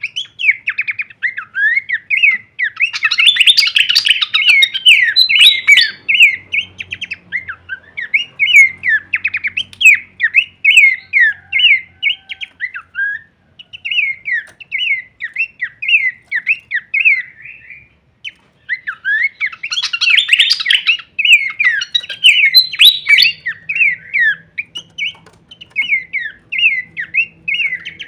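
Horsfield's babbler (pelanduk semak) singing a fast, varied run of chirping notes that breaks off briefly twice, growing denser and louder in two stretches.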